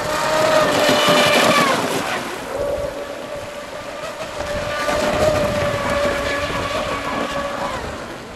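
Electric RC hydroplane at speed: the Neu 2215 brushless motor and propeller give a steady high-pitched whine over the hiss of spray. It rises in pitch at the start, then swells louder about a second in and again around five seconds in.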